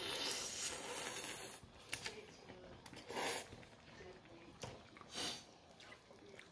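Noodles slurped close to the microphone: one long slurp over the first second and a half, then a few short, sharp slurps and breaths sucked in through the mouth while chewing.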